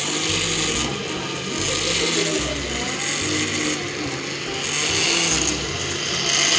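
Electric countertop blender motor running in short pulses, switching on and off about every one and a half seconds.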